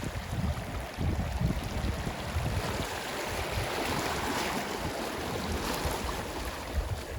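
Ocean waves washing on a shore: a wave swells and breaks through the middle and washes back near the end, over low wind rumble on the microphone.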